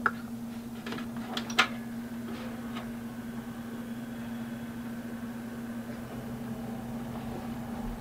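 Freshly built desktop PC running on its first power-up, its CPU cooler and power-supply fans giving a steady hum. A few sharp clicks about a second and a half in.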